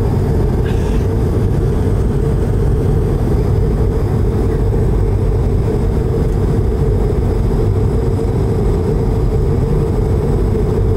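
Steady, loud roar of an airliner's jet engines and airflow heard inside the passenger cabin in flight, deep and unchanging.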